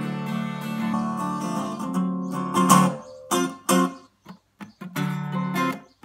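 Seagull spruce-top 12-string acoustic guitar being strummed: ringing chords for about two and a half seconds, one hard strum, then short, choppy chord stabs with brief gaps between them.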